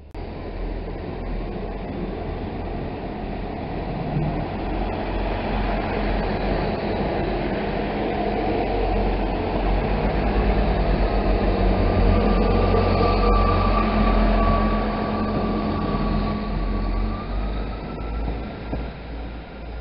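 South West Trains Class 159 diesel multiple unit running through the station: a steady rumble of engine and wheels on rail that grows louder as it passes. A steady high whine joins about halfway through and rises in pitch near the end.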